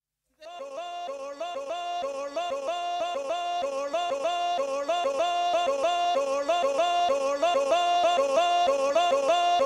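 Song intro: a quick repeating melodic figure starts about half a second in and grows steadily louder, with no bass or drums under it.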